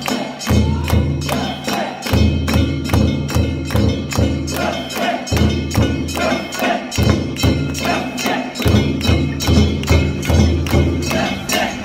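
Live festival percussion accompanying the pulling of a boat float: a fast, even beat of sharp metallic strikes, about four a second, over deeper drum tones.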